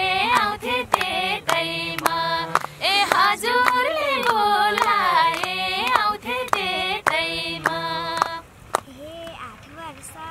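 High female voices singing a Nepali dohori folk song, with the group clapping along about twice a second. The singing and clapping stop about eight seconds in, leaving softer voices and a single clap.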